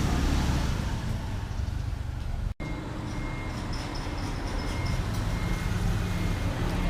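Steady low rumble of background traffic noise, broken by a brief dropout about two and a half seconds in.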